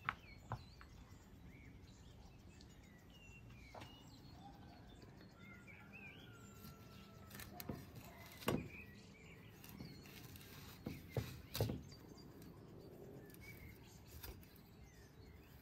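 Kitchen knife knocking and scraping on a wooden cutting board while trimming the dirty stem bases off mushrooms: a handful of separate sharp knocks, the loudest about halfway through and again a few seconds later. Birds chirp faintly in the background.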